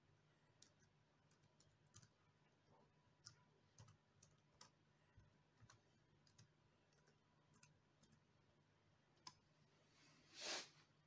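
Faint, irregular key clicks from a Dell Latitude E6420 laptop keyboard as a password is typed, with one short, louder burst of noise near the end.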